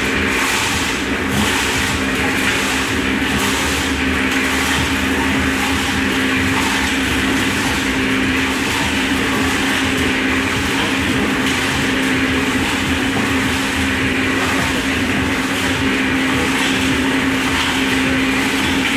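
Small electric drum concrete mixer running, its motor giving a steady hum as the drum turns with dry mix tumbling inside.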